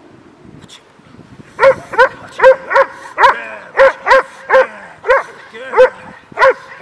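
Doberman barking hard at a decoy who is agitating it during protection training: about eleven loud barks, roughly two a second, starting about a second and a half in.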